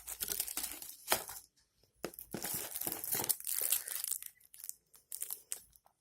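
Packaging wrap crinkling and rustling as it is handled, in two longer stretches followed by a few short rustles.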